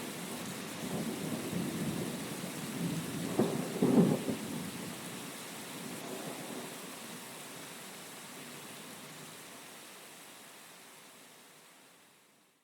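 Heavy rain hissing steadily under rolling thunder, with two loud peaks of thunder about three and four seconds in. The rumble then dies away, and the rain fades out to silence at the very end.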